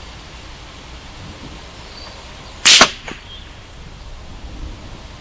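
A single shot from a stock Ruger 10/22 semi-automatic rifle firing .22 LR match ammunition, a sharp crack a little under three seconds in, followed by a faint tick a moment later.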